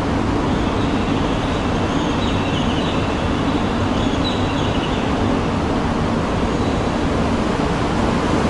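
Steady rushing noise with a low hum on a shinkansen station platform, where a train is standing.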